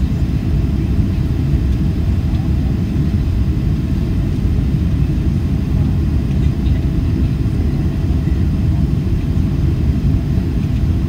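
Steady low rumble of engine and airflow noise inside the cabin of a Boeing 767-300ER descending on approach with its flaps extended.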